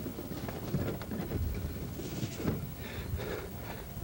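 Wind buffeting a camcorder microphone as an irregular low rumble, with soft handling knocks as the camera is swung around.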